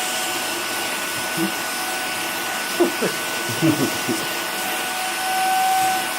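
Vacuum cleaner running steadily as its nozzle is worked over a cat's fur: a rushing hiss with a steady whine on top, the whine growing louder for about a second near the end.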